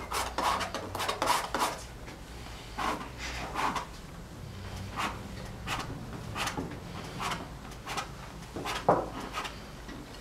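Bristle brush scrubbing oil paint onto a stretched canvas: short scratchy strokes, a quick run of them near the start, then single strokes every half second or so.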